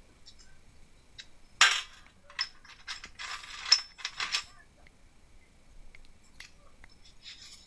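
Steel chuck parts (screws and jaws) clinking and scraping against each other and a metal tray as they are handled and picked out. A sharp clatter comes about a second and a half in, then a run of rattles and scrapes, and it goes quiet after about four and a half seconds.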